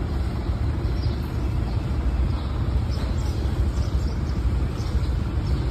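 Triumph Speed Twin 900's parallel-twin engine idling steadily, a low, even rumble.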